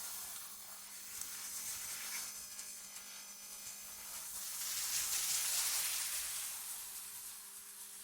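Synthetic wind-like hiss that swells to its loudest about five to six seconds in and then eases off, over a faint steady low hum.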